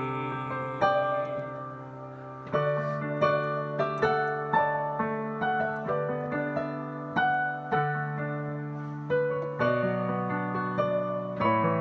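Piano playing an instrumental interlude between sung verses of a hymn: a melody of single struck notes, about two a second, over held bass notes.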